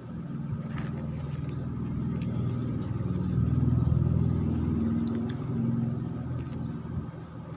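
Engine of a passing motor vehicle, growing louder to a peak about four seconds in, then fading away.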